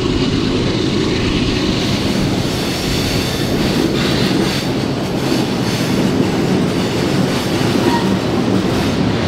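Freight train running at speed, heard from aboard one of its cars: a steady, loud rolling noise with a few faint clicks about three to five seconds in.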